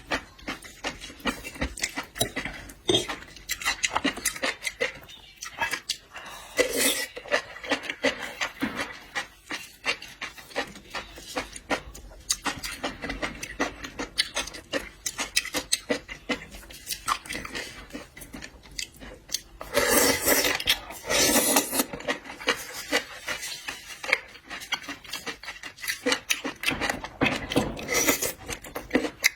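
Close-miked eating of seafood: chewing, with rubbing, scraping and clicking from shells and utensils. There are louder, noisier stretches about a quarter of the way in, around two-thirds in and near the end.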